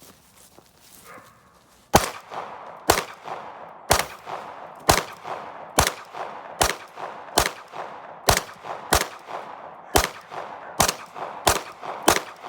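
Glock 19 9mm pistol firing a steady string of about thirteen shots, roughly one a second, starting about two seconds in. Each shot trails off briefly.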